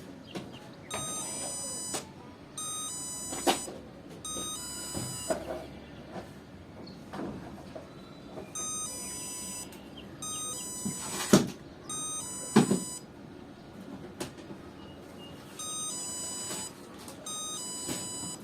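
HS-088 doorbell sound chip playing its electronic ding-dong chime through a small speaker: steady, buzzy tones a second or so each. The chimes come in three runs a few seconds apart. Several sharp clicks and knocks sound among the chimes, the loudest about eleven seconds in.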